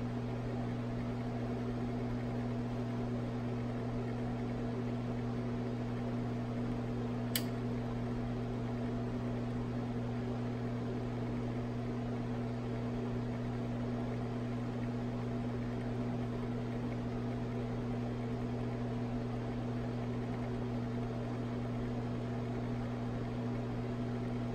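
Steady electrical hum of running lab equipment, low and unchanging, with one faint click about seven seconds in.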